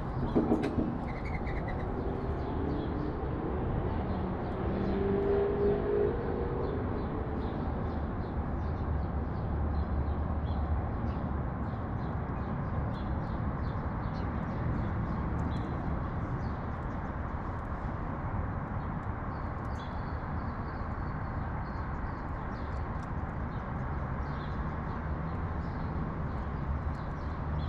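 Steady low rumble of city traffic with faint, scattered sparrow chirps throughout.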